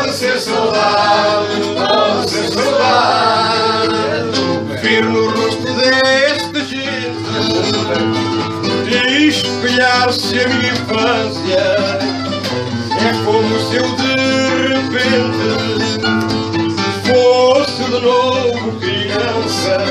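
Fado music played on plucked guitars, with many quick notes over a steady bass.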